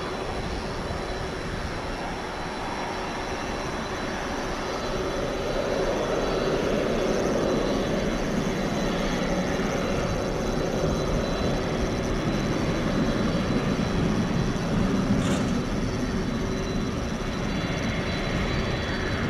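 Boeing 767 freighter's jet engines running at low taxi power as the aircraft taxis, a steady hiss and rumble with a constant whining tone, growing a little louder about five seconds in.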